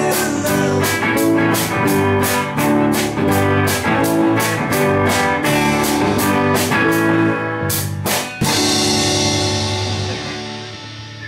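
Rock band playing an instrumental passage on drum kit and guitars with a steady beat. About eight seconds in come two hard accented hits, then the chord and cymbals ring out and fade away.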